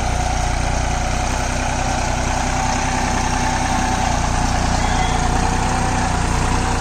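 Deutz-Fahr Agromaxx 4055E 55 hp tractor's diesel engine running at a steady speed.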